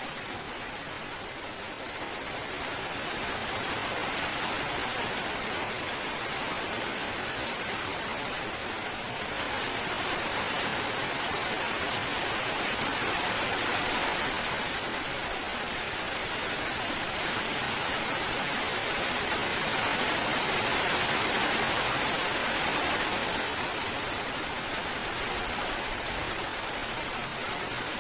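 Steady heavy rain, a dense even hiss that swells a little louder partway through and eases slightly near the end.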